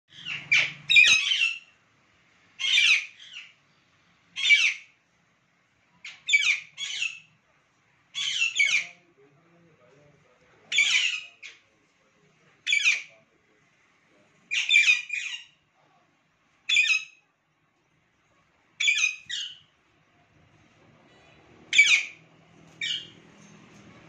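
Alexandrine parakeets squawking: loud, harsh calls repeated about every two seconds, often two in quick succession.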